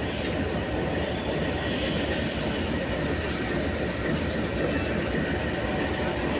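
Pakistan Railways GEU-20 diesel-electric locomotive running steadily as it creeps forward to couple onto the coaches.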